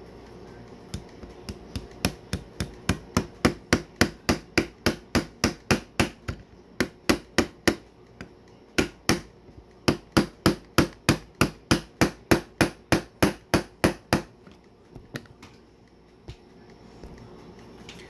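Small brass-and-nylon gunsmith's hammer tapping a steel pin into a Glock 17 Gen 5 frame, a quick steady run of light sharp taps about three a second with one brief pause, then a few softer taps near the end. The pin is not going in because it is snagging on a locking block that has shifted slightly out of line.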